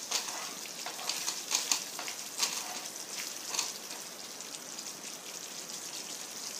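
Thick cashew-and-onion gravy sizzling in a non-stick pan as it is stirred with a wooden spatula, with irregular crackling pops over a steady hiss. The pops thin out after about three and a half seconds.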